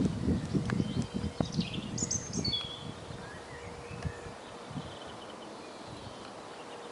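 Outdoor ambience: a few short, high bird chirps and a brief falling phrase about a second or two in. Under them a low, uneven rumble fades out after about three seconds, and a faint steady hum carries on.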